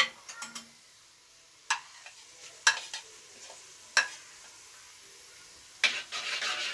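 A metal spoon clinks sharply against a metal karahi, then knocks against it a few more times, a second or so apart. Near the end comes a run of stirring and scraping through onions frying in mustard oil, with a sizzle.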